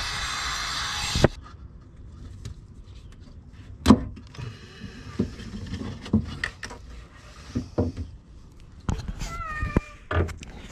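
Scattered clicks and knocks of hands working a plastic electrical connector loose from a Haldex coupling pump under a car. A rubbing hiss at the start cuts off about a second in, and a short falling squeal comes near the end.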